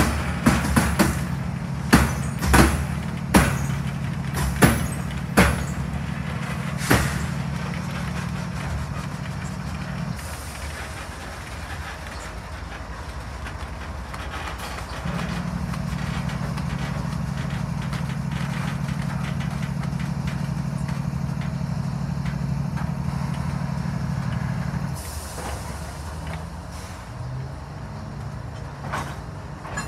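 Slow-moving freight train of covered hopper cars rolling by with its diesel locomotive. Sharp metallic clanks come irregularly through the first several seconds, over a steady low diesel drone that fades about ten seconds in and returns from about 15 to 25 seconds.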